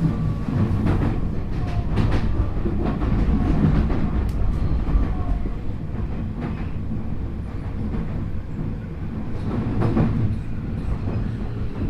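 Interior running noise of a Tokyu 5050 series electric train car: steady low wheel-and-track rumble with scattered clacks over rail joints. A faint Hitachi IGBT inverter whine from the traction equipment under this car end is heard as short falling tones, typical of the train slowing for a station.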